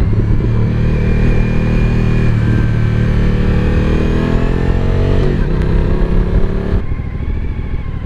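Suzuki V-Strom 1000 XT's 90° V-twin with an Akrapovič exhaust, heard from the rider's helmet, running steadily on the road. The revs then fall as the bike slows, and about seven seconds in the throttle closes and the note drops to a lower, quieter off-throttle run.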